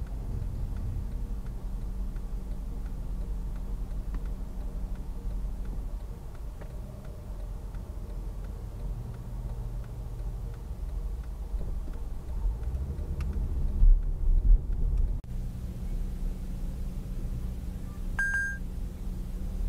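Low, steady rumble of a car idling at a traffic light, heard from inside the cabin, with a faint regular ticking. A few loud low thumps come about 14 seconds in. After a sudden change in the sound, a short electronic beep comes near the end.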